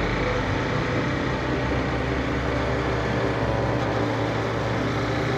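Motorcycle engine running at a steady cruising speed, with wind and road noise rushing over the bike.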